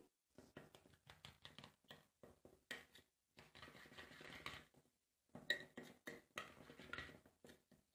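Very faint scraping and a few light clicks of a metal spoon stirring ground spices into yogurt in a small bowl, close to silence.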